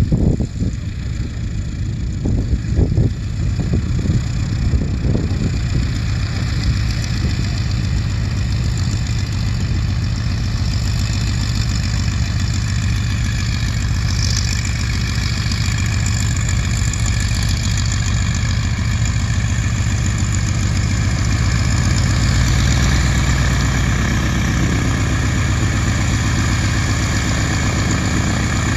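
Stearman biplane's radial engine running at low taxi power, propeller turning, a steady low drone that grows a little louder as the plane comes closer near the end.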